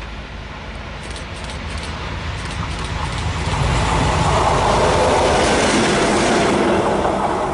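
Diesel locomotive approaching and passing close by, its engine rumble growing steadily louder as it nears, with wheels clattering on the rails. It is loudest from about four seconds in.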